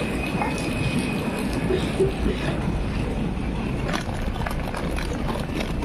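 Airport apron ambience: a steady rush and low rumble, with a few faint scattered clicks.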